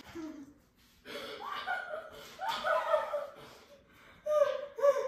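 Girls laughing and giggling, with bits of talk.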